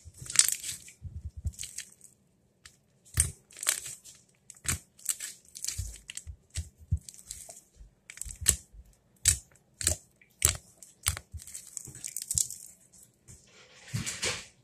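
A large mass of pink slime squeezed, folded and stretched by hand on a countertop, making a fast run of sharp clicks and pops as trapped air bursts, with soft thumps as it is pressed down.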